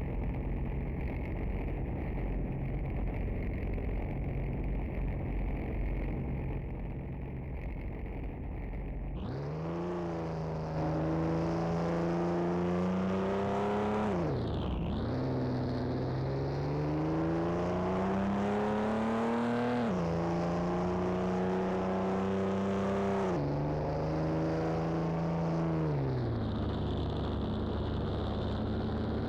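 Chevrolet Omega engine and exhaust idling steadily for about nine seconds, then pulling away and accelerating. The engine note climbs and drops suddenly at each of three or four gear changes, then settles to a steady cruise near the end.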